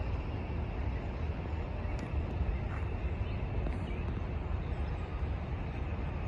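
Outdoor city ambience: a steady low rumble of distant traffic, with a few faint brief sounds on top.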